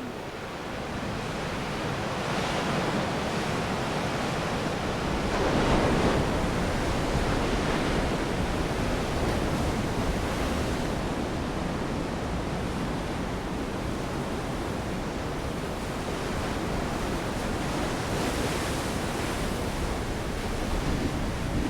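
Big Atlantic waves breaking and washing in: a steady rush of surf with a louder surge about six seconds in.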